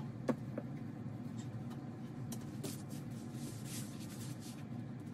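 Soft rustling of fabric quilt blocks being handled and placed on a design wall, with a sharp click about a third of a second in and a few lighter ticks, over a steady low room hum.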